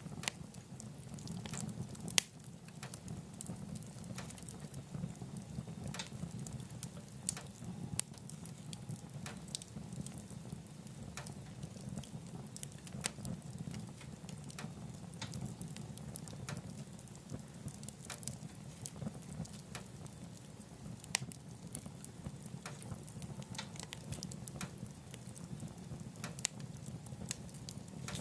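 Wood fire burning in a wood stove: a steady low rumble of the flames with irregular crackling, and a few sharper pops from the burning logs.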